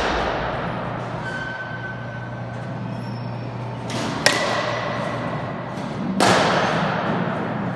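Baseball bat hitting a pitched ball in a batting cage: a sharp crack about halfway through, then another loud impact with a long fading tail near the end, over a steady low hum.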